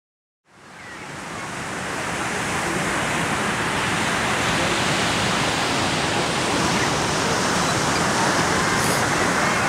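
Ocean surf: a steady wash of waves on rocks, fading in from silence about half a second in and swelling over the next couple of seconds.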